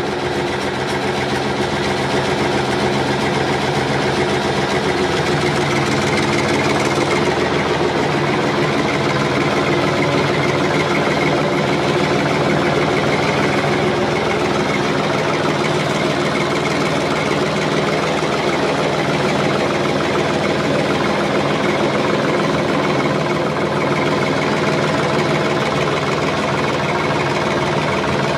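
A motor running steadily, a continuous mechanical drone with a fine knocking texture that holds an even pitch and level throughout.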